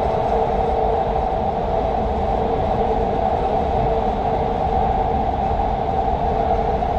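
Doha Metro train running steadily through a tunnel, heard from inside the front car: a constant low rumble under a steady mid-pitched hum.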